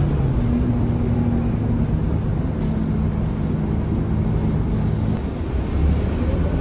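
Scania K230UB bus's five-cylinder diesel engine running steadily at low speed, heard from inside the passenger cabin. About two-thirds of the way through, a high turbocharger whistle starts and rises in pitch as the engine takes load.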